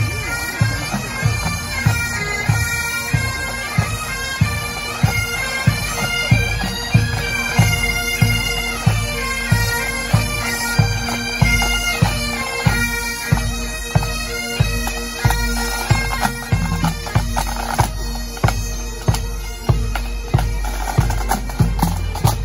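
A pipe band playing on the march: Great Highland bagpipes sound a tune over their steady drones, with drums, bass drum among them, beating about two strokes a second. Near the end the pipes grow fainter while the drums carry on.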